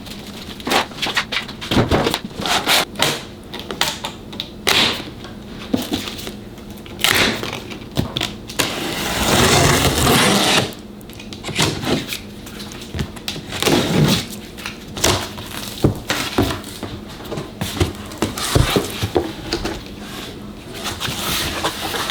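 A shipping box being opened and unpacked by hand: a string of knocks, clicks and handling noises, with a longer rustling scrape about nine seconds in.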